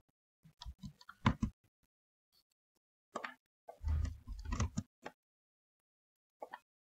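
Scattered clicks and taps from a computer mouse and keyboard as drawing commands are entered. There is a longer, duller cluster of knocks about four seconds in.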